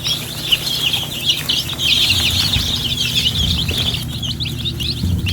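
A brood of week-old Whiting True Blue and Buff Orpington chicks peeping together, many short high peeps overlapping without a break.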